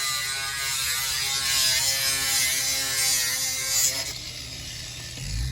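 A steady, fixed-pitch mechanical buzz from a small motor, stopping about four seconds in. Near the end a lower, steady engine-like hum comes in.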